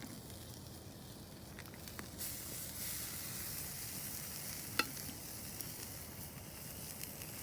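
Seasoned chicken thighs sizzling on the hot grate of a charcoal- and wood-fired Santa Maria grill, a steady hiss that gets louder about two seconds in. A sharp click comes near five seconds.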